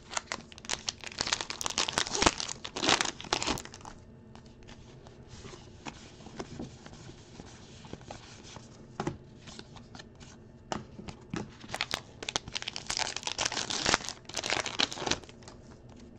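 Baseball card pack wrappers being torn open and crumpled, in two spells of dense crackling, with quieter card handling between them.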